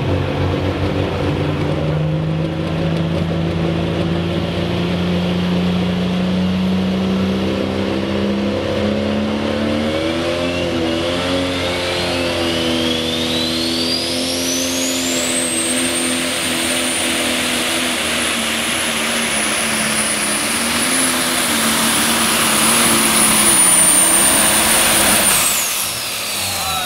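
Multi-turbo diesel engine of a super stock pulling tractor held at high revs at the start line. Its pitch creeps up, then from about ten seconds in a turbo whine rises steeply to a shrill, steady scream. The scream holds for about ten seconds and drops away near the end.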